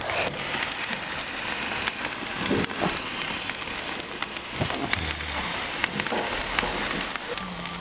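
Parboiled whole chickens sizzling and crackling on a hot barbecue grill grate as they are laid on it: a steady hiss with scattered crackles that eases off shortly before the end.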